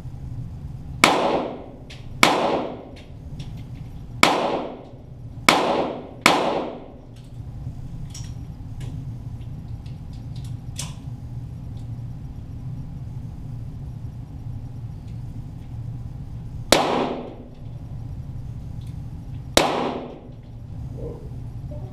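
Seven shots from .22 Walther GSP target pistols, heard from near the target, each with an echoing tail: five in quick succession over the first six seconds or so, then two more, about three seconds apart, near the end.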